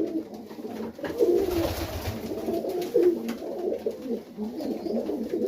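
Several Serbian highflyer pigeons cooing continuously and overlapping in a small loft, with a brief rush of noise about a second and a half in.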